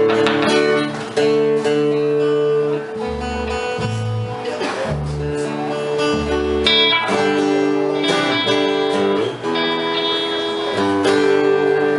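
Live band playing the instrumental intro of a country song: strummed guitar chords over a few deep bass notes.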